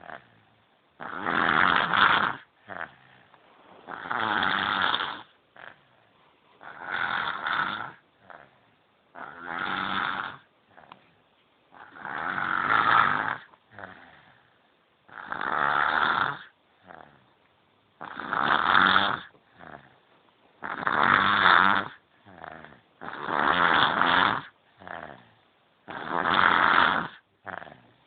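A baby snoring in its sleep: a loud snore roughly every two and a half to three seconds, with fainter breaths between.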